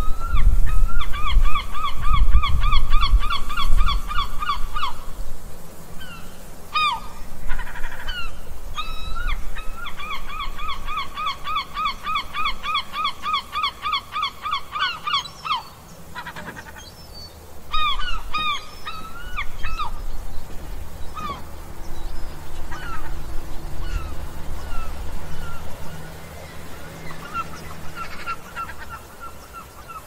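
Gulls calling: two long runs of quick repeated cries, about four a second, one near the start and one from about ten to fifteen seconds in, then scattered single cries, over a low rumble.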